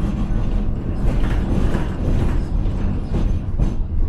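Tram running on its rails, heard from on board: a steady low rumble of wheels on track with creaks and rattles from the car.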